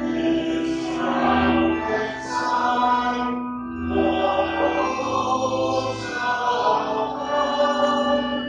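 Slow church music of sustained chords, changing every second or two.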